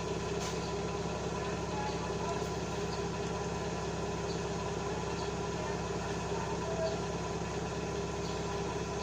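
Steady mechanical hum, like a motor or engine running at a constant speed, unchanging throughout.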